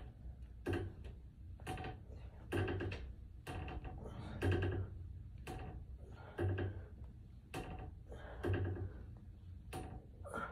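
TRX suspension strap and foot cradle creaking and clicking under load during single-leg supine leg curls, a short creak about once a second with each repetition.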